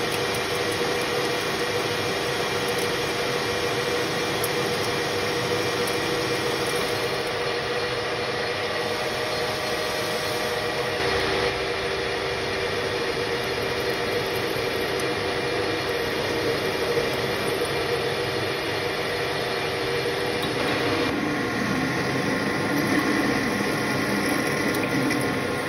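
AL-1324 centre lathe running steadily with a constant gear whine as it turns a small part, then drills into it with a twist drill held in a tailstock chuck. The sound shifts abruptly about 11 seconds in and again about 21 seconds in, and is a little louder near the end.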